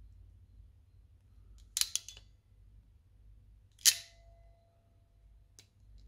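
Ratcheting crimp tool closing on a Dupont terminal: a quick run of ratchet clicks about two seconds in, then a sharp snap as the ratchet releases, with a metallic ring that hangs on for over a second. A small click follows near the end.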